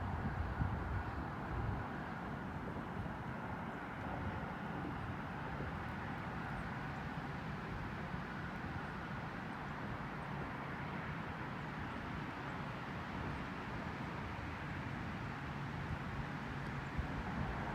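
Steady low hum of a distant engine.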